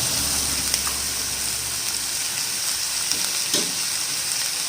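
Chopped onions and thick potato pieces sizzling steadily in oil in a kadhai, with a couple of faint clicks.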